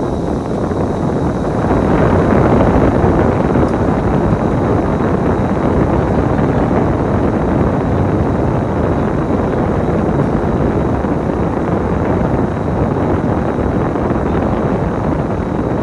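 Bus engine and road noise inside a moving bus: a steady rumble that grows louder about two seconds in and then holds, as the bus picks up speed.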